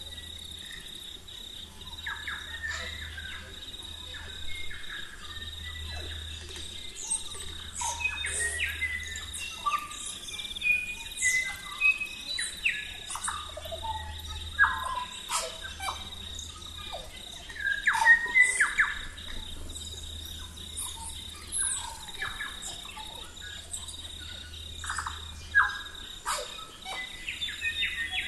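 Birds calling: many short chirps and falling whistles, loudest in a cluster of calls about two-thirds of the way in. Under them runs a steady high insect trill, like crickets.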